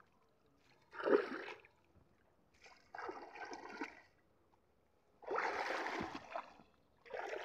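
Shallow pond water splashing and sloshing as a person wades and gropes with his hands at the bank, in four short bursts, the loudest a little past halfway.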